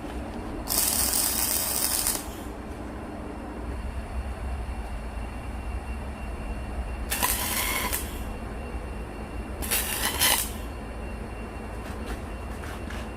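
Arc welding in three short bursts of hiss, the first about a second long near the start and two shorter ones a little past halfway: tack welds fixing a steel support bracket that holds a log splitter's hydraulic cylinder in place. A steady low hum runs underneath.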